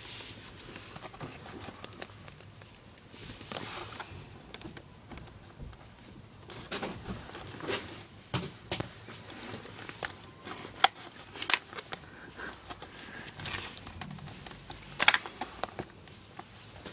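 Cardboard box and plastic blister packaging being handled and opened by hand: scattered rustling, scraping and small clicks, with a few sharper clicks about eleven and fifteen seconds in.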